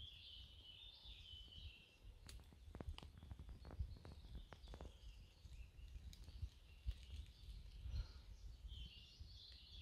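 Faint forest ambience. High bird chirping comes at the start and again near the end, over a low rumble, with a few soft clicks in between.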